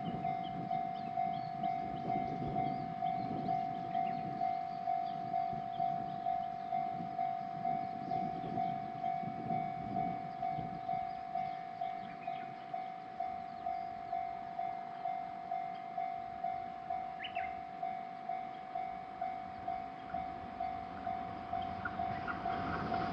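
Japanese railroad crossing warning bell ringing at an even pace of about two strokes a second on one steady pitch. A train's running noise starts to rise near the end.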